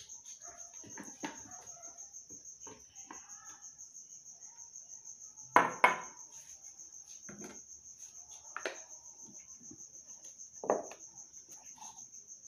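A cricket chirps in a steady high pulse throughout, under plastic knocks and clatter as a blender jar and lid are handled. The loudest are two sharp knocks close together about halfway through and another near the end.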